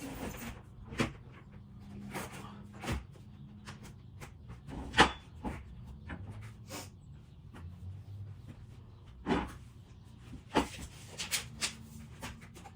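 Scattered knocks and clunks from hands-on renovation work, irregularly spaced, with the sharpest about five seconds in and a quick cluster near the end.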